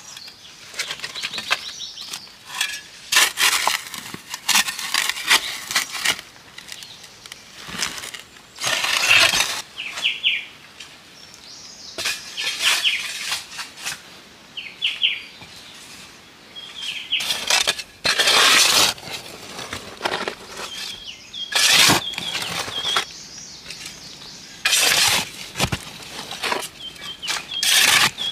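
Repeated scraping and crunching strokes of a metal spade digging into soil, some short and some lasting about a second. Between them, birds chirp in short, repeated calls.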